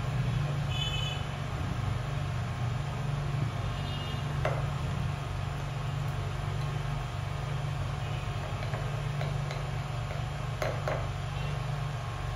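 Steady low hum, with two faint clicks about four and a half and ten and a half seconds in as a knife cuts through a toasted cheese sandwich on a plate.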